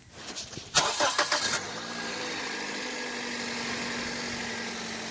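A 2007 Toyota Corolla's four-cylinder engine is cranked by its starter, catches about a second and a half in, and then idles steadily.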